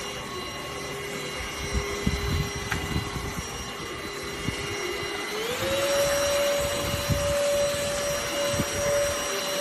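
ENOLUX ST7000 cordless handheld vacuum cleaner running with a steady motor whine and scattered low knocks. About five and a half seconds in, the whine rises to a higher pitch and holds there.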